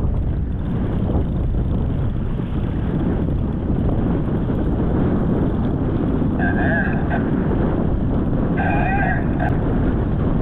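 Wind buffeting the microphone over open water, with two short, wavering, high-pitched calls, one a little over six seconds in and the other about eight and a half seconds in.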